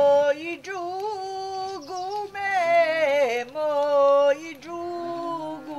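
Background music: a slow, ornamented melody with long held notes that slide and waver between pitches.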